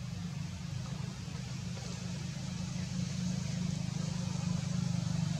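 An engine running steadily, a low hum with a fast even flutter.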